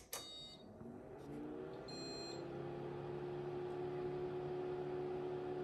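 Hewlett-Packard 54200A digitizing oscilloscope switched on: a click of the power switch, then its cooling fan spins up, the hum rising in pitch and settling into a steady drone. A short high beep sounds about two seconds in.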